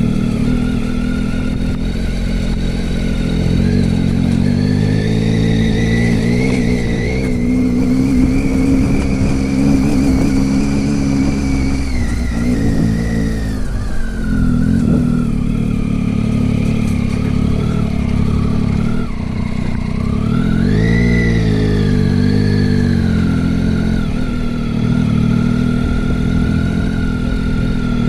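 Vehicle engine running under way, its pitch rising and falling with the throttle: it drops about halfway through, dips briefly, then revs up again before settling.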